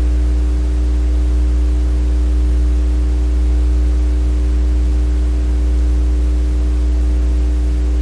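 Steady electrical hum with a ladder of buzzing overtones over a faint hiss, unchanging throughout: background noise of the recording setup.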